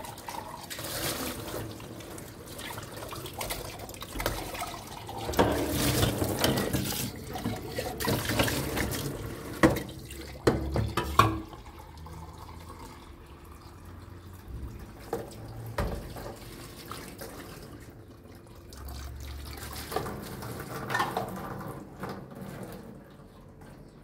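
Water running and splashing, uneven and loudest in the middle, with a few sharp knocks about ten seconds in.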